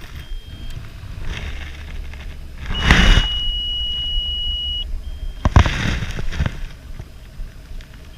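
A single steady electronic beep, one high tone held for about two seconds, a few seconds in. Around it are several gusty rushes of noise over a low rumble.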